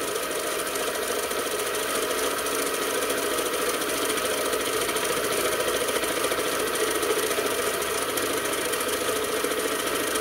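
Small bench lathe running steadily while its cutting tool turns a steel bar: a continuous mechanical whir of motor and gears with the cut, holding an even level throughout.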